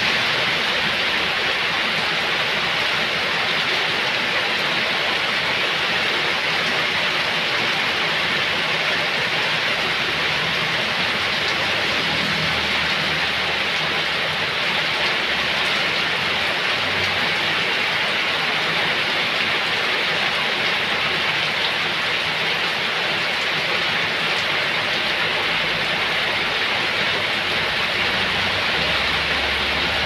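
Heavy rain pouring steadily onto flooded pavement and ground, an even, unbroken hiss.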